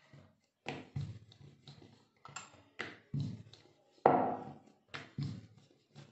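Wooden rolling pin rolling out puri dough on a marble board: a string of knocks and rolling strokes at irregular intervals, roughly one or two a second, the loudest about four seconds in.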